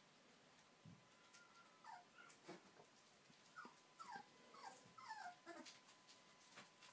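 Puppy whimpering faintly: a run of about six short, high whines, each falling in pitch, through the middle few seconds.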